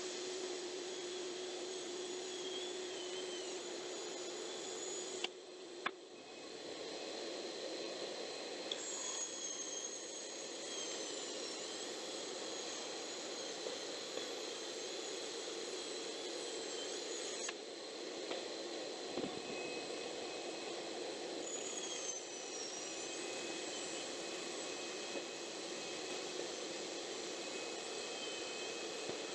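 Craftsman band saw running with a steady motor noise. A low hum drops out about five seconds in with a couple of sharp clicks, and the saw keeps running after that.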